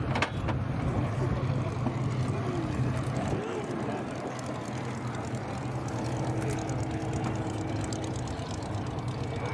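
Supermarine Spitfires' piston engines droning steadily at low power as the aircraft come in to land, with a single handling knock on the camera near the start.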